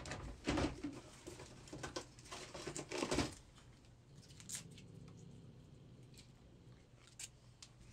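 Rustling, scuffling and knocking in a wire cage as a cat thrashes about, loudest near three seconds in, then it goes quiet.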